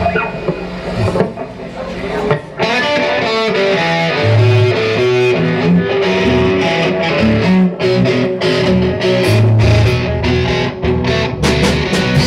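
Live rock band playing, led by electric guitar with bass and drums; the song kicks in fully about two and a half seconds in.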